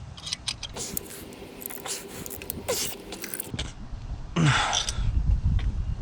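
Metal tools clicking and scraping in an engine bay while a seized spark plug is worked on, with a short falling sound about two-thirds of the way through and low rumbling handling noise after it.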